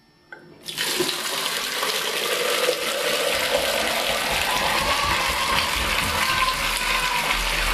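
Water gushing hard out of an open Hudson Reed shower valve body, its flow control valve taken out, as the house supply is turned on about half a second in. It keeps rushing steadily at full house pressure.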